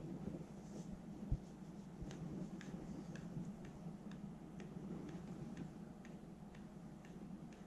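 A cat licking a dog's head fur, faint wet clicks about twice a second, over the steady hum of an electric fan. One thump about a second and a half in.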